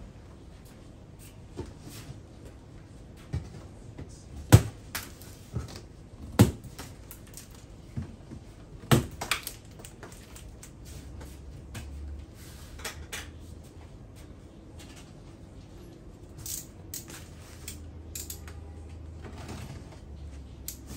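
An e-bike's shipping box and its packing being opened and handled: a few sharp knocks and thumps in the first half, then lighter clicks and scratchy rustling of packing material.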